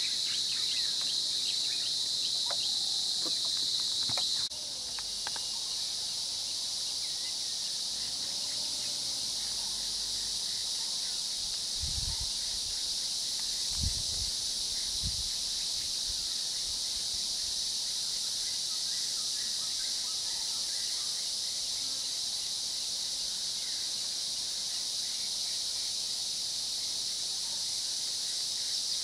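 Dense, steady chorus of insects, a high continuous buzzing hiss, with a few faint bird chirps in the first seconds. It drops slightly in level about four seconds in, and a few low thuds come near the middle.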